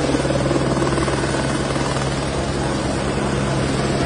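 Fire brigade rescue helicopter flying close by: a steady rotor and engine drone with a constant low hum and fast, even rotor strokes.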